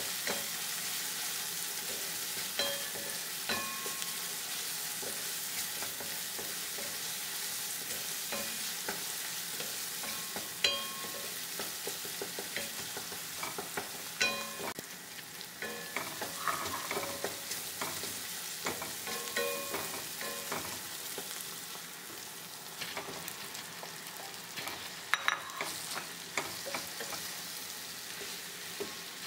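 Tomato and onion masala sizzling in oil in a stainless steel wok, with a wooden spatula stirring and scraping through it and knocking now and then against the pan. Near the end, pieces of fried urad dal fritter are being stirred in.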